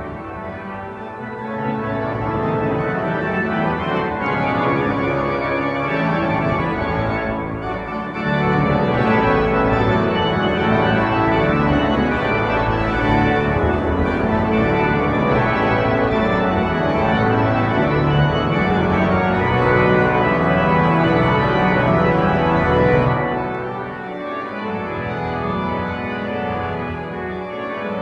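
Yale's Newberry Memorial Organ, a large pipe organ, playing sustained full chords over deep bass notes. It grows louder about eight seconds in and eases off a few seconds before the end.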